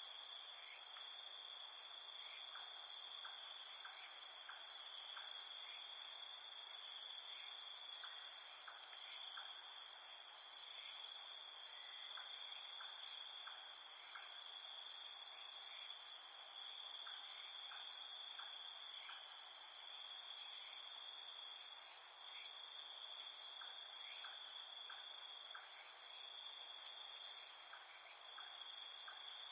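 Steady chorus of crickets and other insects: continuous high-pitched trilling, with faint short ticks in small groups throughout.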